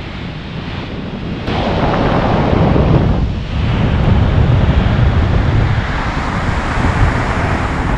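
Sea water rushing and foaming around a moving ship's bow, with wind buffeting the microphone. It steps up louder about a second and a half in.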